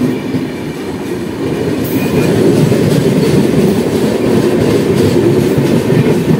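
Passenger train passing close alongside on the next track, its coach wheels clattering over the rail joints in a steady rumble that grows louder about two seconds in.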